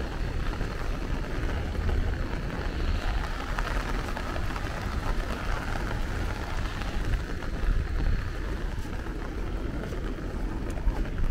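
Steady rain falling on an umbrella held overhead and on the wet walkway, with a constant low rumble under it.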